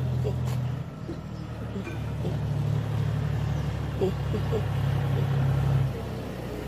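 Steady low engine-like hum that dips just before a second in, then swells from about two seconds until near six seconds before falling back, with a few faint short higher sounds near the start and about four seconds in.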